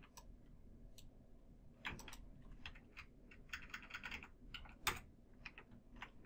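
Faint, scattered clicks of computer keyboard keys being pressed, with a quick run of taps around the middle and the loudest click about five seconds in.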